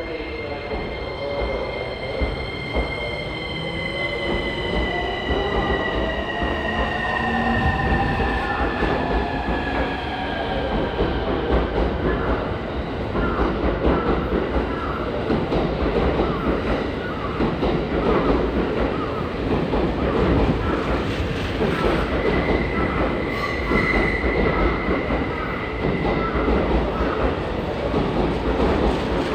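A JR East E231-1000 and E233-3000 electric multiple unit pulling out and gathering speed. Its inverter motor drive sings in several tones that shift in pitch as it accelerates. Then the passing cars' wheels clatter rhythmically over the rail joints, with a brief high whine again later on.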